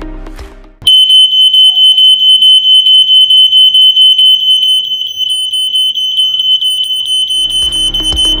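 Smoke detector alarm sounding: a loud, shrill, high-pitched buzzer tone, pulsing rapidly, set off by smoke.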